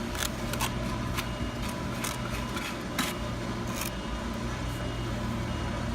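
Mason's trowel scraping and clicking against a stacked-stone veneer piece as mortar is spread onto its back: a series of short scrapes and light knocks. A steady low hum runs underneath.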